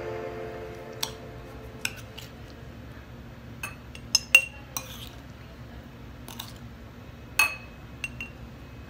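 A metal utensil clinking against a ceramic bowl and the rim of a glass jar as pickled mango strips are moved from bowl to jar: about ten scattered light clinks, the loudest a little past four seconds in and at about seven and a half seconds.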